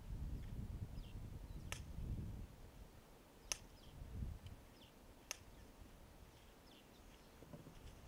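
Outdoor bush ambience: a low rumble that eases off about two and a half seconds in, faint bird chirps, and three sharp clicks about two seconds apart.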